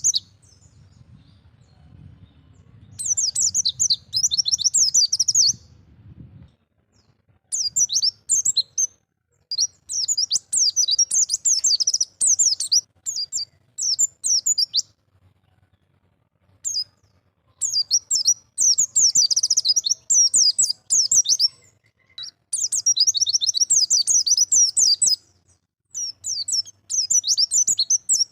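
A pleci (white-eye) singing in the 'ngalas' style: repeated bursts of rapid, high-pitched twittering, each lasting one to three seconds with short pauses between them.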